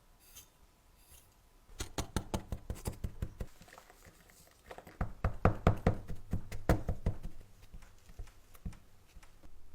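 Quick runs of light knocks and taps, about six a second: one run starting a couple of seconds in, a louder one near the middle, then a few single taps near the end.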